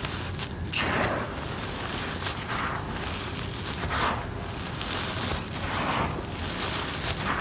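Dry, gritty crumbled cement powder with small pebbles being scooped and poured by hand, a grainy pouring hiss that swells about once every second or so as each handful falls.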